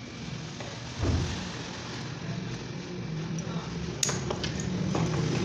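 Steady low mechanical hum that gets louder about a second in, with a few light clinks about four seconds in.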